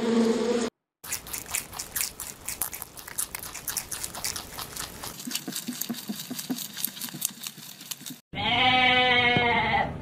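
A swarm of honeybees buzzes at a hive for a moment and cuts off. Rabbits then chew hay, a long run of quick irregular crunching clicks. Near the end comes one long, loud sheep bleat.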